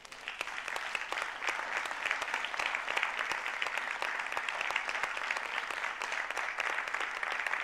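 Congregation applauding, swelling within the first second and then holding steady.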